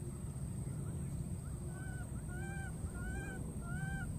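A baby monkey calling: four short arched cries, each rising then falling in pitch, about three-quarters of a second apart, starting a couple of seconds in, over a steady low background noise. These are the calls of a baby looking for its lost companion.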